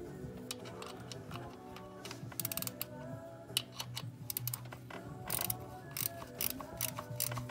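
Background music whose held tones step in pitch like a melody, with clusters of sharp clicks from about two seconds in.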